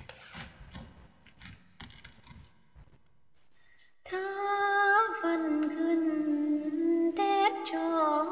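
Faint scattered clicks and rustles for about four seconds, then a woman starts singing a Tày phong slư folk melody, with long held notes and sliding, wavering ornaments.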